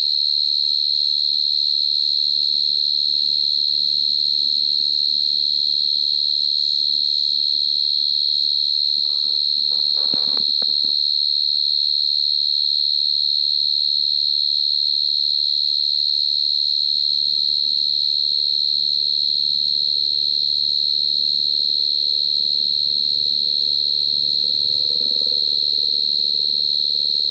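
A cricket trilling close by: one steady, high-pitched note held without a break. A faint rustle comes about ten seconds in.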